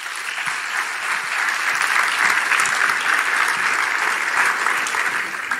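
Congregation applauding, a dense steady clapping that builds over the first couple of seconds and holds until near the end.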